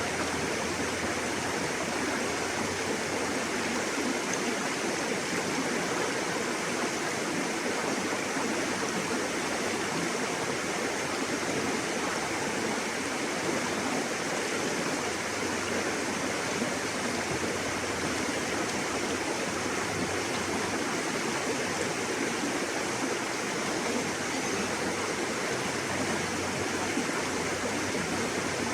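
River water rushing steadily, a continuous even flow without breaks.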